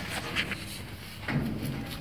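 A few knocks and clunks of a metal front bumper being shifted on a jack stand and fitted up against the vehicle's frame mounts.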